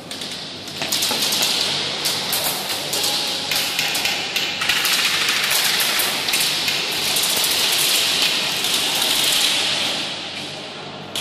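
Airsoft guns firing in rapid bursts during a game, a dense, fast patter of clicks that starts about a second in and keeps going.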